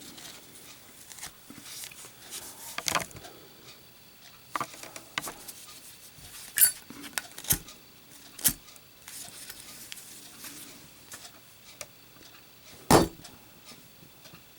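A Zippo lighter clicking and clinking as it is handled, then dropped, landing with one loud clack near the end.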